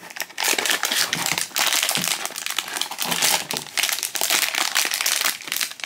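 Cardboard blind box being opened, then the foil bag inside crinkling continuously as hands pull it out and open it.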